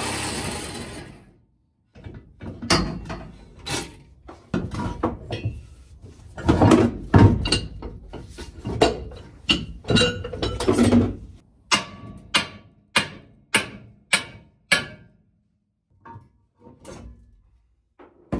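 An angle grinder's cut dying away at the start, then irregular clanks and thuds of steel being worked loose. After that come a run of sharp hammer blows on steel, about two a second, and a few lighter taps near the end.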